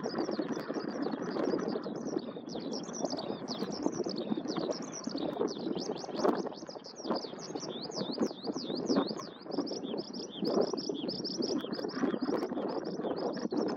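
Eurasian skylark singing in its song flight: an unbroken stream of rapid, high chirps and trills without pauses. Steady background noise sits underneath.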